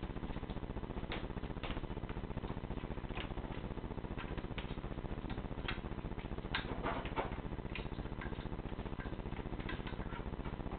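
A kitten playing at a knotted string on a wooden chair leg: irregular light clicks and scratches of claws on bare wooden floorboards over a steady low hum, with a brief flurry of louder scratching about six and a half seconds in.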